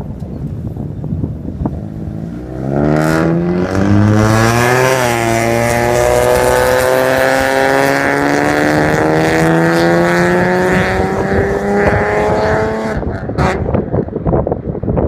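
Toyota 1JZ-GE straight-six in a JZS151 Crown, heard through its one-off muffler, accelerating: the exhaust note climbs quickly, drops at an upshift about five seconds in, then rises steadily for about eight seconds before cutting off. Wind noise on the microphone before and after the pull.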